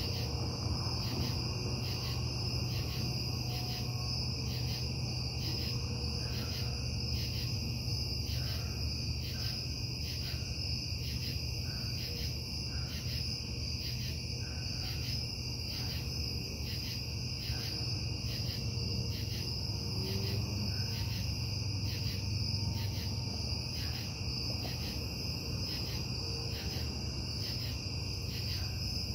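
A steady low industrial hum from the Casting Solutions casting plant, the noise complained of as breaking the noise ordinance. Over it, crickets chirp in an even chorus at about two pulses a second.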